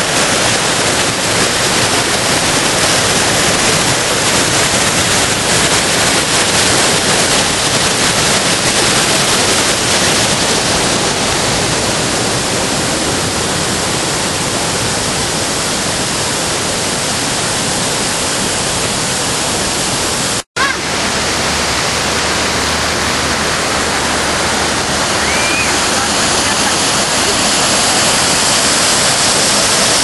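Upper Düden Waterfall's water pouring over the rock ledges in a loud, steady rush. The sound cuts out for an instant about two-thirds of the way through, then carries on unchanged.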